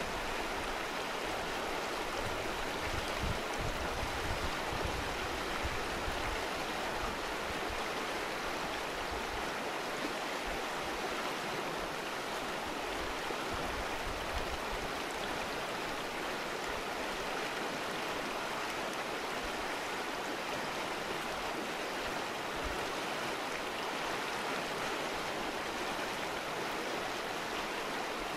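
Fast, shallow mountain river rushing over a stony bed, a steady, even rush of water.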